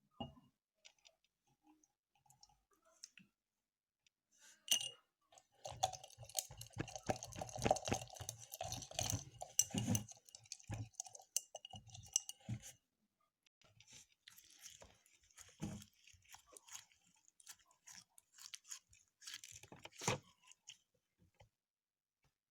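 Homemade slime being stirred and worked in a plastic container: sticky crackling and clicking, in a dense run for several seconds, then lighter and more scattered for the rest.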